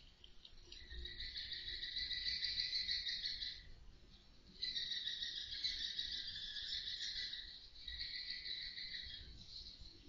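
Roosting edible-nest swiftlets giving a steady, buzzing twitter in two long stretches of about three and five seconds, with a brief pause between.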